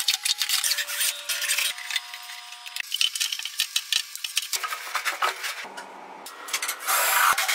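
Handling noise as a conveyor belt and a sheet of belt material are pulled, flexed and slid against a galvanised sheet-metal trough: rubbing and scraping with many small clattering clicks, with a louder stretch of scraping near the end.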